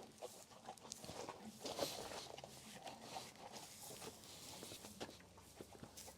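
Faint shuffling footsteps and rustling, with scattered light clicks and taps at irregular times.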